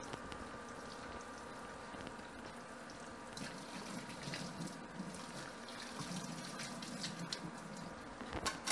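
Kitchen tap running into a stainless steel sink while a wire grill rack is washed under the stream, with scattered light clinks of the rack against the sink. Louder metal clinks come near the end as the rack is lifted out.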